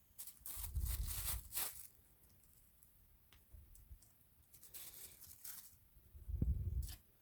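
Close-up eating noises in three short bursts, the first and last with a low thud underneath.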